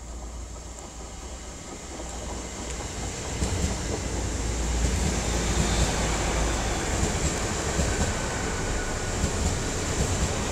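Nine-car Class 800 Intercity Express Train approaching and running past along the platform. It grows louder over the first four seconds, then holds a steady rumble of wheels on rail.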